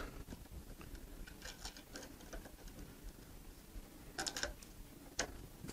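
Faint, light clicks and taps of small springs and bed parts being handled as the springs are fitted under a 3D printer's heat bed, with a short cluster of sharper clicks about four seconds in and a single click about a second later.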